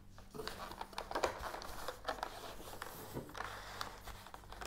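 Clear plastic packaging crinkling and clicking in the hands as a boxed model locomotive is worked out of it: a string of irregular small crackles.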